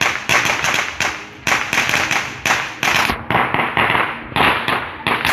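A string of firecrackers going off in rapid, continuous cracks, with two short lulls.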